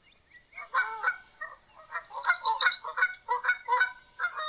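A flock of geese honking: many short, overlapping honks, growing thicker about two seconds in.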